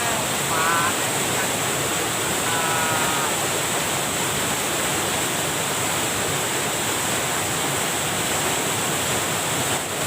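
Steady rush of water pouring over a small weir. Two short high calls are heard in the first few seconds.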